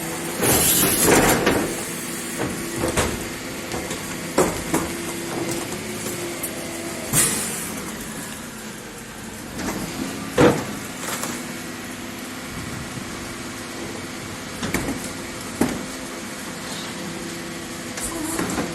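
Garbage truck engine running steadily, with intermittent clanks and knocks, the loudest about ten seconds in, and short rushing noises near the start and about seven seconds in.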